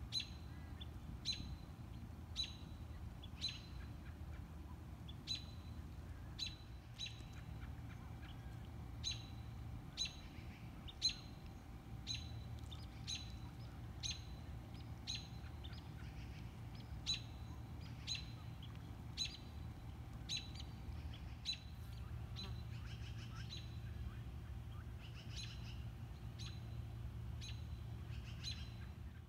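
A bird's short, high chirp repeated about once a second, turning into quicker clusters of notes after about 22 seconds, over a low steady rumble.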